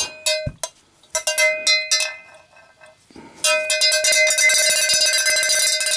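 Cowbell being struck: a few separate ringing hits, then from about three and a half seconds in a fast, continuous run of strikes.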